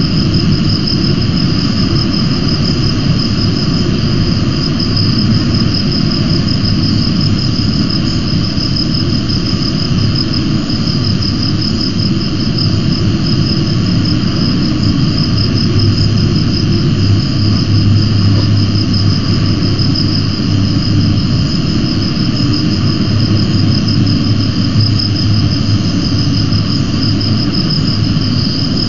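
Steady outdoor noise: a rough low rumble with a continuous, fast-pulsing high-pitched trill over it, like insects chirring.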